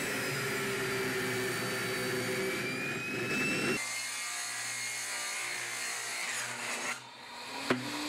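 Table saw running and ripping lengthwise through a thick-walled 6-inch PVC pipe: a steady, dense cutting noise with a thin whine that rises slightly in pitch. About four seconds in the sound changes and loses its low end, and it drops off near the end, with a sharp click just before it ends.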